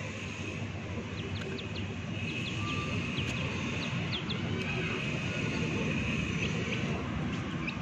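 Chicks peeping: a run of short, high, rising peeps in the first half and a few more near the end, over a steady low rumble.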